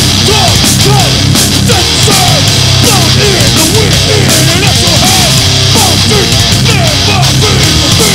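Live heavy metal band playing at full volume, taken straight from the sound desk mix: distorted electric guitar, bass and drums, with many short pitch bends riding over the riff.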